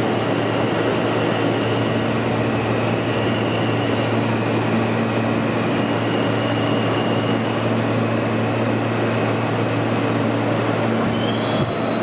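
The inside of an R160A subway car running through the tunnel: a steady, loud rumble of wheels on rail with the steady hum of the car's propulsion. Near the end a high tone rises as the train comes into a station.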